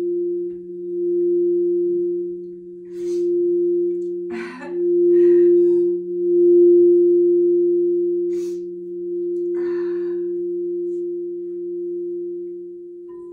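Crystal singing bowls ringing in a sustained two-note drone, a higher tone over a lower one. The higher tone swells and fades in slow waves every second or two.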